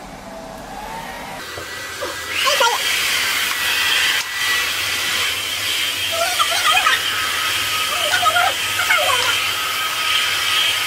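A small electric blower motor switches on about two seconds in and then runs steadily with a hiss. A few short squeaky glides sound over it.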